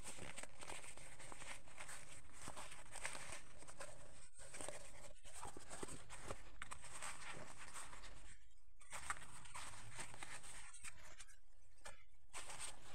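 Crinkling and rustling of a rolled, plastic-covered diamond painting canvas being unrolled and handled, a dense run of crackles with a few short lulls in the second half.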